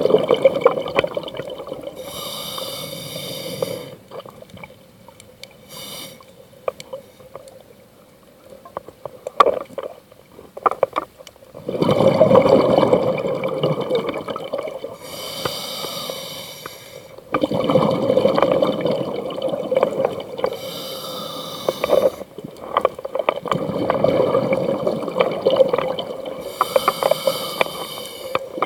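Scuba diver breathing underwater through a regulator: a hissing inhale and a long bubbling exhale, repeating about every five to six seconds. The breathing goes quiet for several seconds early on, with only a few faint clicks, before the cycles resume.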